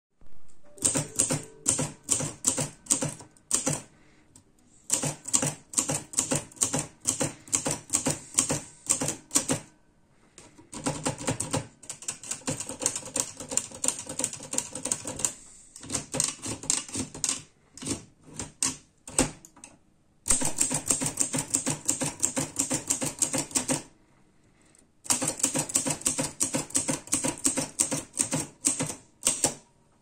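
Chevron portable manual typewriter being typed on: quick runs of sharp key strikes in about six bursts, separated by short pauses.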